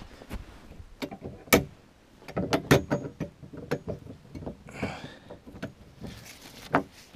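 Irregular clicks, knocks and rattles of a ratchet strap and the metal tow hitch of a plastic sled loaded with boards being handled, with the sharpest knocks about a second and a half and nearly three seconds in, and a brief rustle near the end.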